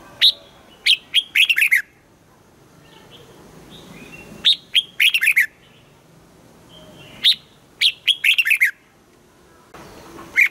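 Red-whiskered bulbul singing: short, bright phrases of a few quick, falling whistled notes, each phrase about a second long and repeated roughly every three seconds.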